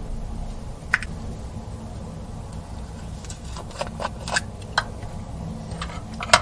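Slime being mixed and worked by hand, giving scattered short, sticky clicks and pops, a cluster in the middle and the loudest one near the end, over a steady low hum.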